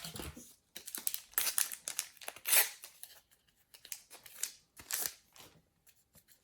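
A trading-card packet wrapper being torn open and crinkled, with the cards inside being handled, in a string of short, irregular rustles.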